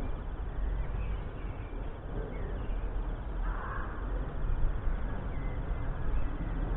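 Outdoor garden ambience: a steady low wind rumble on the microphone, with small birds chirping now and then and one harsh, half-second bird call, like a crow's caw, about halfway through.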